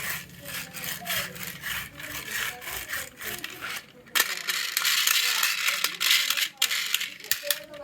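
Small toy vehicles rolling and clattering down a HABA wooden slope track: a run of separate clacks, then from about four seconds in a dense, continuous rattle, breaking back into single clacks near the end.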